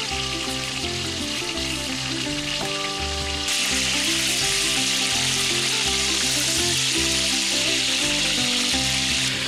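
Pork chops frying in hot oil in a skillet: a steady sizzle that gets louder about three and a half seconds in.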